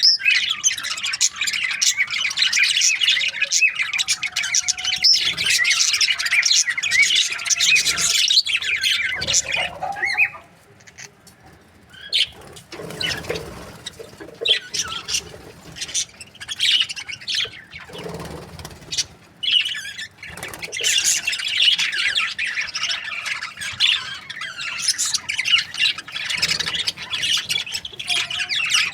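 A group of budgerigars chirping and chattering with many overlapping calls. The chatter thins out and drops quieter for several seconds about a third of the way in, then grows dense again near the two-thirds mark.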